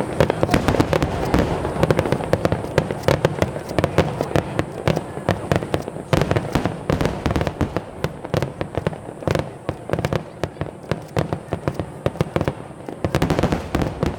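Fireworks display: many sharp bangs and crackles in quick, irregular succession over a continuous low rumble, easing a little after the middle and picking up again near the end.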